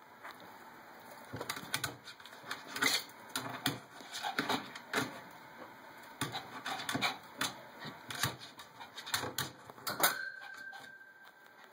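Irregular plastic clicking and tapping of a Roborovski dwarf hamster scrabbling inside a plastic exercise ball that sits in a holder on top of its cage. The hamster is too small to turn the ball, so it slides and scrabbles instead of rolling.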